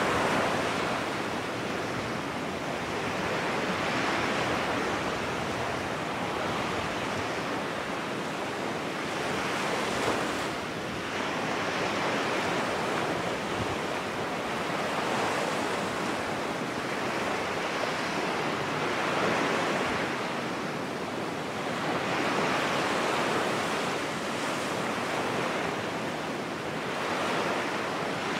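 Ocean-wave sound: a steady rushing noise that swells and ebbs every four or five seconds.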